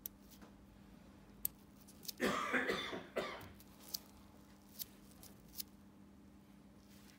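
A person coughs once, about two seconds in, lasting about a second. A few small sharp clicks are scattered around it, over a steady low hum.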